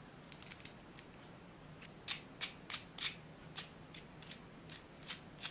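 Light, irregular clicks and taps of wooden toggle clamp parts and their hardware being handled and fitted together, about a dozen, most of them from about two seconds in.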